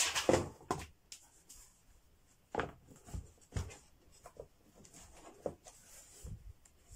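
Hands handling a 15.6-inch portable monitor and its folding case: a rubbing scrape in the first second, then a few soft knocks and thuds as the screen is set against the cover.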